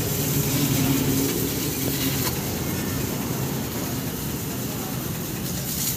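High-pressure washer running with a steady low hum, its water jet hissing as it sprays onto the tractor's bodywork.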